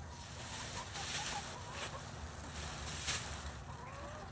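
Dry fallen leaves rustling and crackling in bursts as they are scooped up by hand, the loudest about three seconds in, with soft chicken calls in the background.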